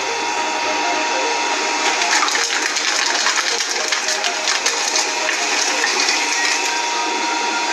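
Industrial shredding machine running and tearing up material, a dense steady grinding noise with a faint steady whine and a flurry of sharp cracks and snaps through the middle.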